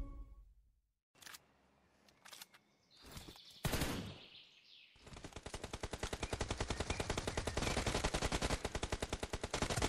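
A near-silent start broken by a few faint short sounds, then about five seconds in, rapid automatic gunfire fades in and runs on as a fast, steady stream of shots.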